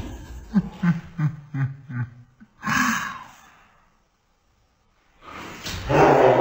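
A person laughing in a quick run of short bursts, then a louder breathy gasp. The sound drops away to near silence, and louder noise comes back near the end.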